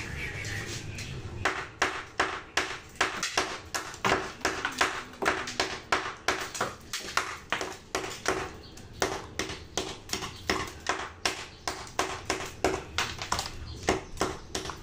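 Hand hammer striking metal at a concrete wall in a steady run of blows, about three a second, each with a short metallic ring; the hammering starts about a second and a half in.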